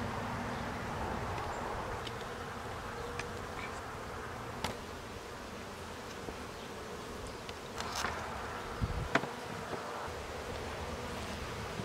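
Honeybees buzzing steadily around open hives. A few sharp knocks of wooden hive boxes and covers being handled, most of them near the end.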